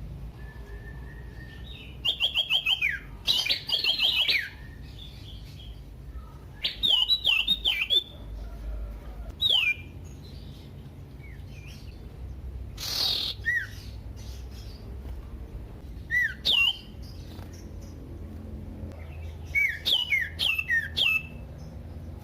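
Common iora singing: short phrases of sharp, falling whistles, repeated in bursts a few seconds apart, over a steady low hum.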